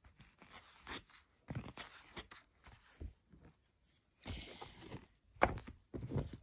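Paper books being handled: irregular rustles of pages turning and soft knocks as books are shifted, the sharpest knock about five and a half seconds in.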